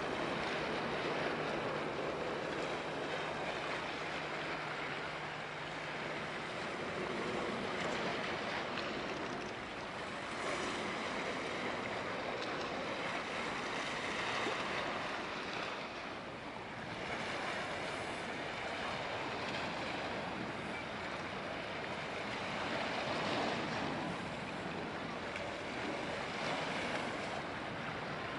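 Steady rush of wind and water at the harbour, swelling and easing every few seconds, with a faint low hum through the first several seconds.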